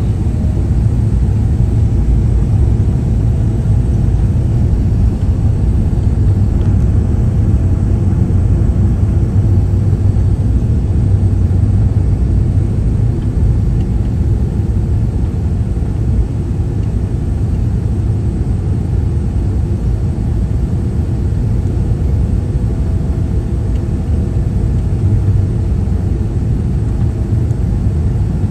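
Steady low rumble inside an airliner cabin on its descent: engine and airflow noise.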